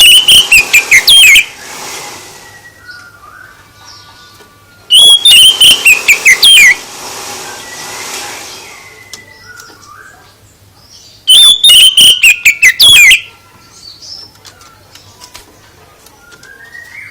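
Songbird song in three loud bursts of rapid, high chirps and trills, each lasting about two seconds, separated by pauses of several seconds with fainter chirps between.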